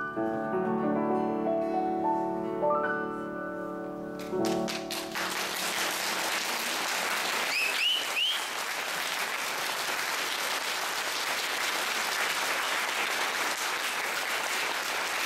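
Piano plays the last notes of a song, which ring out and end about five seconds in. Audience applause then starts and carries on steadily.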